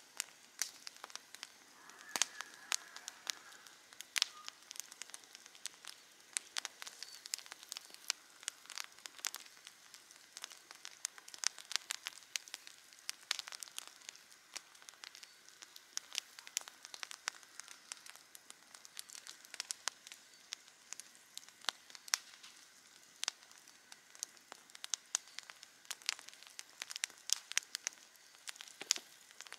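Wood campfire crackling: many irregular sharp pops and snaps over a faint steady hiss.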